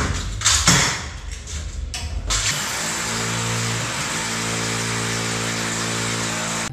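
Corded electric drill running at a steady speed, boring through the frame of an aluminum hanging cabinet into the wall to fix it in place. The drill starts about two and a half seconds in, after a couple of seconds of irregular clattering noise.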